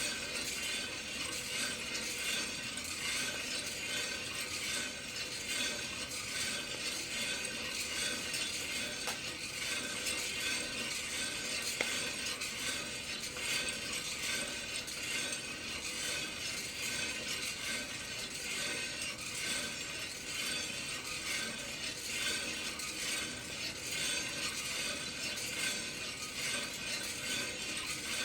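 Kaldi rotating-drum coffee roaster turning, with green coffee beans tumbling and rattling steadily inside the drum over a constant hiss and hum.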